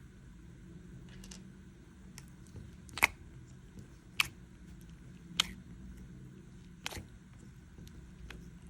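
Slime being squeezed, giving four sharp pops about a second apart and a few fainter clicks, over a low steady hum.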